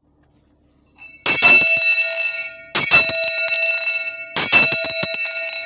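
A metal bell rung three times, each a quick cluster of strikes followed by a ringing tone that fades out.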